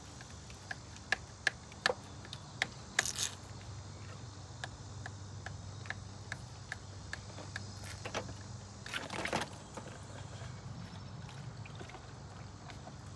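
Rubber radiator hose being twisted and worked loose from a Jeep Cherokee's thermostat housing: a quick run of light clicks and scrapes over the first three seconds, then a short splashing rush about nine seconds in as coolant spills out into a plastic catch tub.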